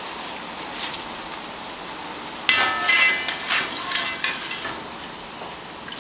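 Green plantain slices frying in hot oil for tostones, a steady sizzle. About two and a half seconds in comes a couple of seconds of loud clinks and clatter with a metallic ring, as a utensil knocks against the pan while the fried pieces are lifted out.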